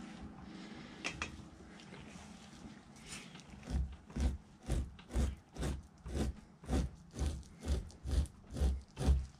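Fleshing knife scraping fat off a raccoon hide stretched over a wooden fleshing beam, in quick, regular push strokes about two a second that begin a few seconds in.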